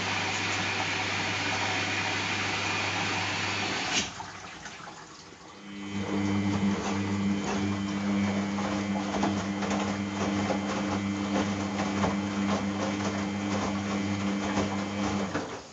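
Samsung WF70F5E0N4W washing machine at the start of its rinse. Water rushes in for about four seconds, then stops with a sharp click. After a short lull the drum motor starts with a steady hum and the wet laundry tumbles with many small clicks, until it all stops near the end.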